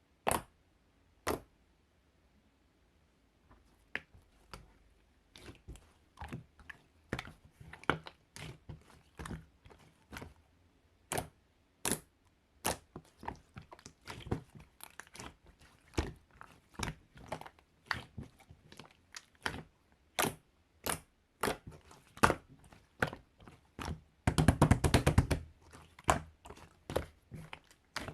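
Slime being pressed and squished by hand, giving sharp clicking pops at an uneven pace, with a quick burst of crackling near the end.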